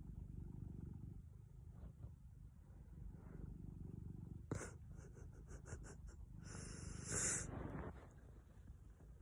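A house cat snoring: slow swells of low, rasping rumble with each breath. A sharp click comes about halfway through, and a louder noisy burst follows around two-thirds of the way in.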